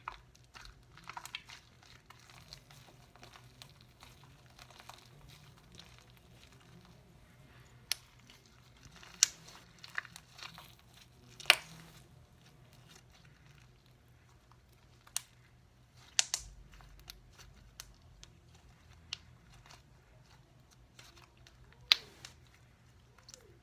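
Slime being kneaded and stretched by hand with shaving cream worked in, to soften it. It gives scattered sticky clicks and pops, with the sharpest ones about eleven seconds in and near the end.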